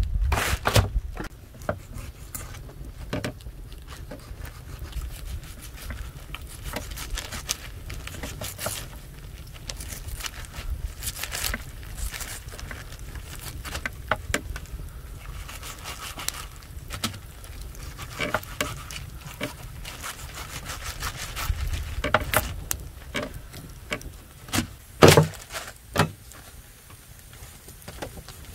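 Hands handling raw sturgeon pieces on a plastic sheet spread over a wooden table: scattered soft taps, scrapes and plastic crinkles over a low steady rumble, with a few sharper knocks near the end.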